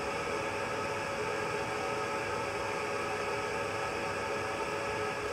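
Convection oven fan running: a steady drone with hiss that does not change.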